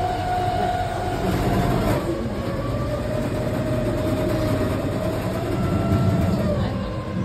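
Glass-bottom tour boat's motor running with a steady whine over a low rumble while the boat is being turned around. The whine drops in pitch about two seconds in and again near the end, and the rumble is strongest shortly before the second drop.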